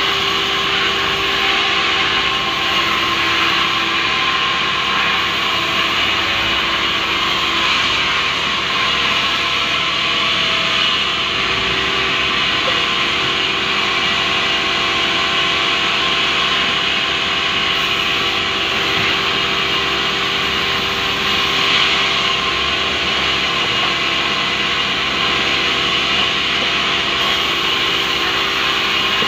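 Sawmill band saw running and ripping lengthwise through a large rubberwood log: the steady rasp of the blade in the wood over the machine's hum, with a few held tones.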